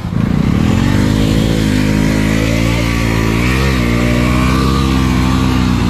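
Bajaj Dominar motorcycle's single-cylinder engine held at steady revs under load as it pushes through deep mud, with a brief rise and dip in pitch a little past the middle. The sound cuts off suddenly at the end.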